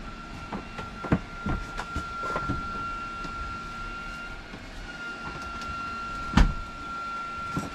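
Handling knocks and clicks as a mains plug is pushed into a wall socket, the loudest a single sharp knock about six seconds in, under a faint steady high-pitched whine.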